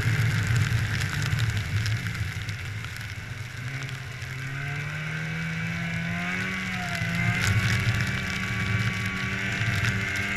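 Snowmobile engine running under way. It eases off about three seconds in, then rises steadily in pitch as the throttle opens again.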